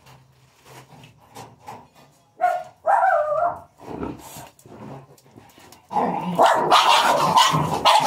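Dog barking: a short loud outburst about two and a half seconds in, then rapid, continuous barking from about six seconds in.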